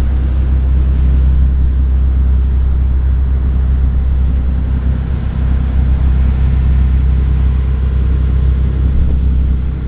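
Engine of a lake tour boat running steadily: a loud, deep, even hum heard on board.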